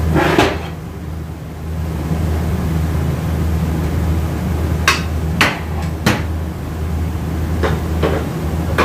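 Metal automatic-transmission parts, such as a clutch drum and gear assembly, knocking and clinking as they are handled and set down on a steel workbench. There is a short scraping clatter near the start and about six sharp knocks in the second half, over a steady low hum.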